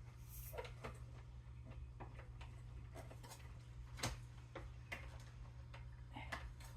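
Irregular small clicks and taps of plastic parts being handled, as the refrigerator's water dispenser housing is worked back into place and its water tube pushed into its hole. The sharpest click comes about four seconds in, over a steady low hum.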